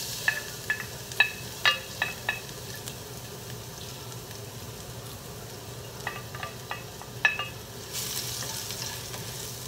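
Chopped garlic sizzling in a hot nonstick wok, with sharp taps of a wooden spatula against the plate as the garlic is scraped in. About eight seconds in, the sizzle grows louder as the spatula stirs the garlic in the pan.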